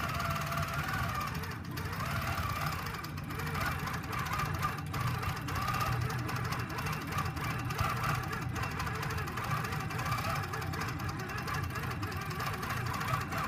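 Longarm quilting machine running steadily, its motor humming and needle stitching rapidly through the quilt.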